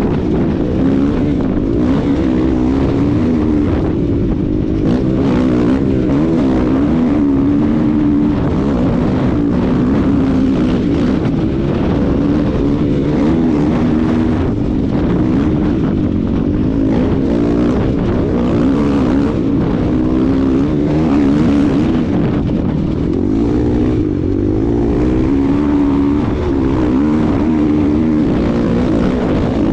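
KTM 500 EXC dirt bike's single-cylinder four-stroke engine running hard at race speed, its pitch rising and falling as the throttle is worked.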